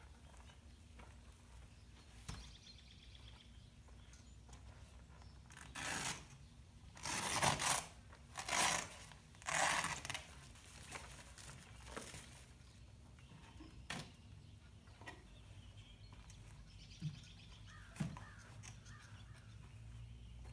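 Four loud bursts of rustling and scraping, each under a second, as an insulated fabric hive jacket is pulled off a stack of hive boxes. A few light knocks and faint bird chirps can be heard around them.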